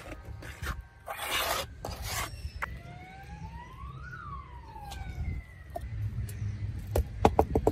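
A trowel scraping and pushing wet concrete in a mold, then a siren wails once in the background, rising and falling in pitch over about three seconds. A quick run of sharp taps comes near the end.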